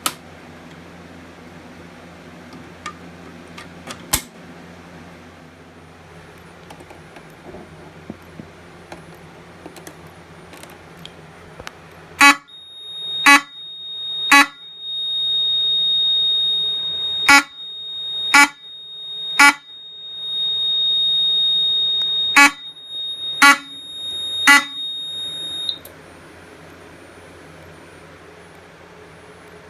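Fire alarm horn, a Wheelock 34T coded by the panel to single stroke, giving very short pulses in groups of three about a second apart, with a steady high-pitched tone sounding beneath them; this begins about 12 seconds in and cuts off about 14 seconds later. Before it there is only a low fan-like hum and a few clicks.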